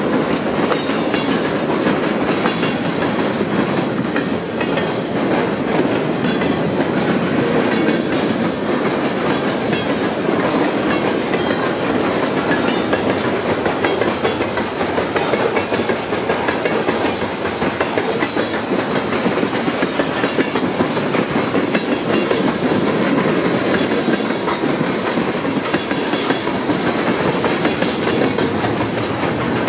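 Freight train cars (covered hoppers, tank cars and boxcars) rolling past, a steady noise of steel wheels on rail flecked with many small clicks.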